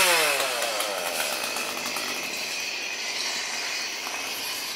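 A chainsaw engine revving and then winding down, its pitch falling over about the first second. A steady noisy din follows.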